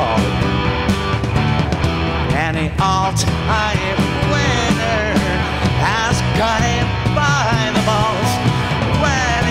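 Live rock band playing: drum kit, electric guitars and keyboard together at full volume, with pitched lines bending up and down over the beat.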